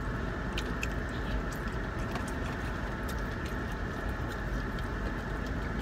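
Steady hum inside a running car, with faint scattered clicks of someone chewing crispy fried chicken.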